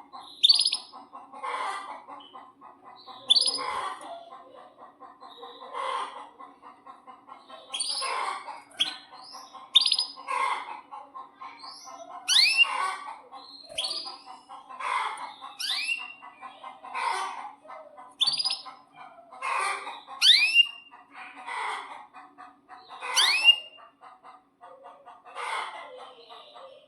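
Canary calling over and over, a call every second or two, many of them ending in quick sharp sweeping whistles. A steady low hum runs underneath.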